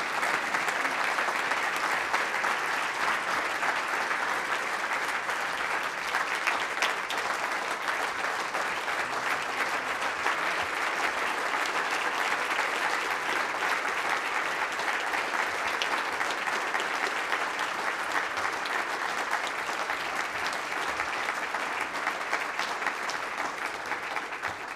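Audience applauding steadily, many people clapping at once in a large hall.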